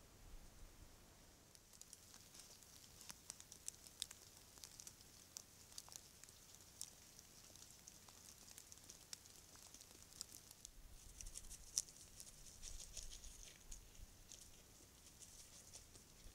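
Faint, irregular crackling and ticking of dry leaf litter and twigs disturbed by foraging animals, thickest about eleven to thirteen seconds in.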